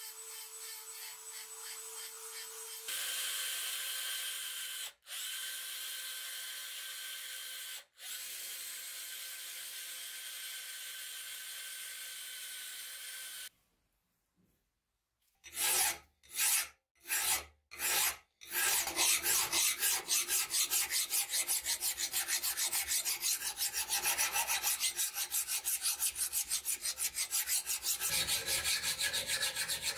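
Handheld rotary tool with a conical burr grinding rust pits on a steel cleaver blade: a steady high whine that shifts about three seconds in and cuts out briefly twice. After a short silence, a hand file scrapes across the blade, first a few separate strokes, then rapid continuous back-and-forth strokes.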